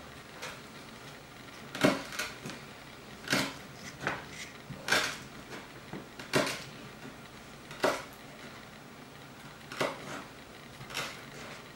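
Kitchen utensils knocking and scraping against dishes: a series of separate sharp clinks, roughly one a second and irregularly spaced, the loudest near two seconds in.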